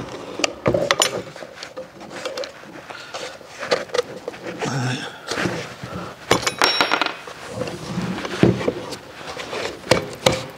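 A Vevor portable steel-cutting bandsaw being handled and turned over on a workbench during blade refitting: irregular clunks, clicks and knocks of its metal frame and wheel covers, with a brief metallic ring about six and a half seconds in.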